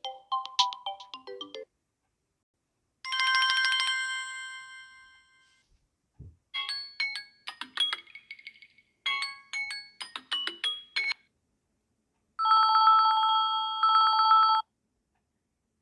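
Samsung Galaxy A30 ringtones played one after another, each stopping short before the next: a brief melodic jingle, a bell-like chime that fades out, two runs of quick plinking electronic notes, then a steady two-pitch electronic tone lasting about two seconds.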